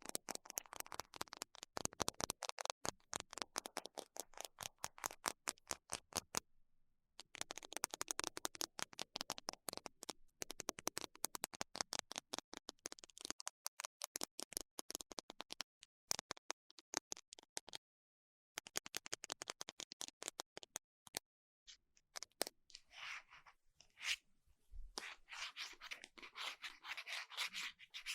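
Close-miked ASMR scratching: long runs of very rapid, sharp clicking strokes, stopping briefly twice, then turning into a denser scratchy rubbing near the end.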